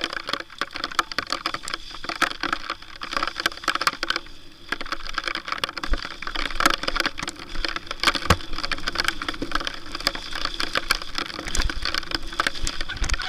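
Lapierre Zesty TR 4.9 full-suspension mountain bike clattering down a wet, rough trail: a continuous rapid run of sharp clicks and knocks from the tyres over mud, roots and stones and the bike's chain and frame rattling.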